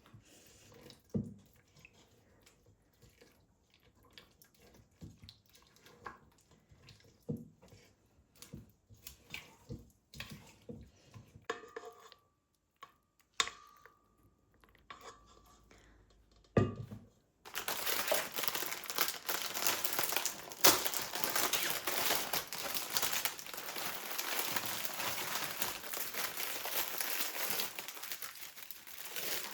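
Scattered light knocks and clicks of things being handled, then from just past halfway a continuous dense crinkling and crackling, like packaging being crumpled or unwrapped.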